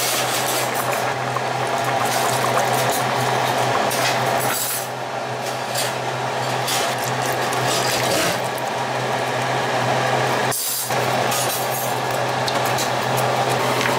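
Pot of potatoes in chicken broth at a boil, with splashing and sloshing as drained canned green beans, mixed vegetables and tomato sauce are tipped into it. The sound drops out for a moment about ten and a half seconds in.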